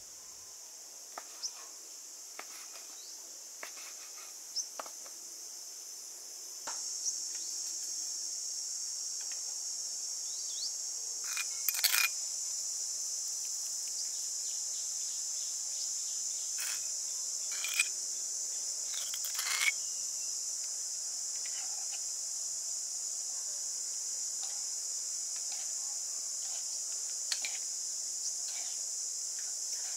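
Steady high-pitched drone of insects, with scattered clicks and taps from a knife on a wooden cutting board and a metal spoon against a bowl as raw beef is cut and mixed.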